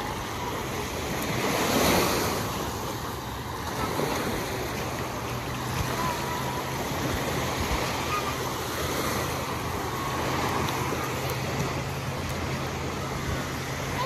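Small waves breaking and washing up on a sandy beach, with one louder surge about two seconds in.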